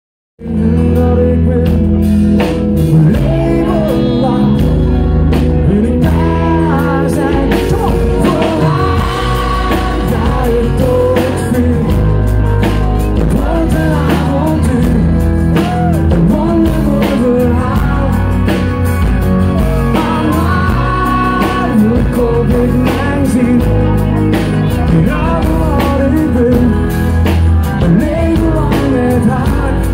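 Live band playing a pop-rock song through a PA, with a man singing into a microphone over drums, guitar and keyboards.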